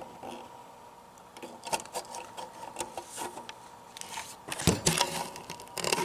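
Close handling noise: scattered light clicks and rustles, busier near the end, over a faint steady high hum.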